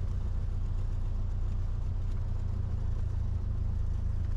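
Cessna 172's piston engine and propeller droning steadily at an even, low pitch.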